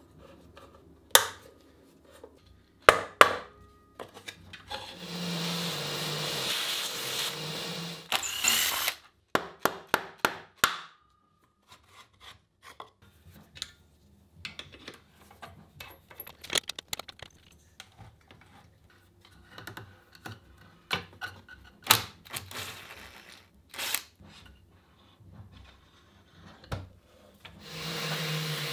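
Hand-tool work on a bandsaw's motor mount: scattered sharp clicks and knocks of a screwdriver and parts being handled. A shop vacuum runs for a few seconds about five seconds in and starts again near the end.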